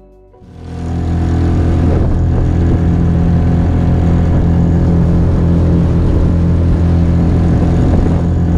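Yamaha 4 hp four-stroke outboard motor running at a steady speed under way during its break-in, over a steady rush of wind and water. It fades in over the first second.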